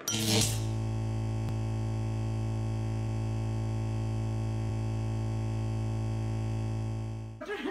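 A steady, held electronic drone with a deep hum and many overtones, starting suddenly with a brief swell and fading out just before the end.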